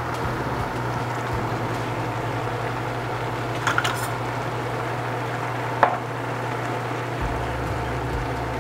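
Ground venison filling sizzling in a pan on the stove as it is stirred, with a few sharp clicks of a utensil against the pan near the middle.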